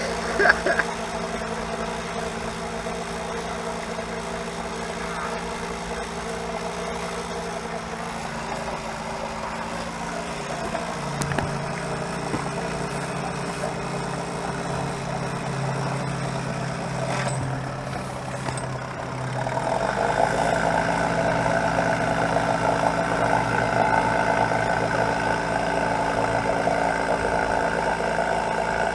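A boat engine running at idle, steady and even, with a short knock a moment after the start. About 20 seconds in it grows louder and rougher.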